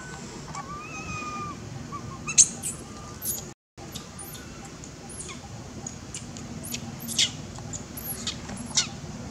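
Short, high-pitched animal chirps and squeaks, repeated irregularly from about two seconds in, over a low steady background hum. The sound drops out for a moment near the middle.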